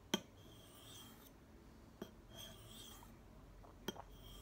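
Steel knife blade being drawn across a sharpening stone in slow strokes: a faint scraping rasp with a thin high ring, each stroke starting with a sharp click, three strokes about two seconds apart.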